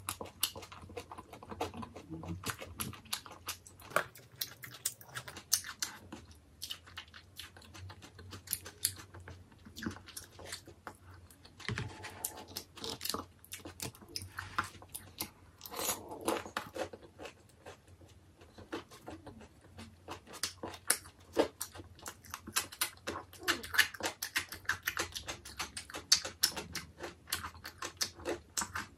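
A person chewing and biting tangsuyuk, battered fried pork in sweet-and-sour sauce, close to the microphone: a dense, irregular run of short, crisp mouth sounds with no pause.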